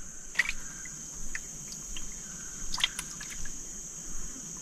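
A steady high-pitched drone of insects, with a few soft clicks and taps scattered through it.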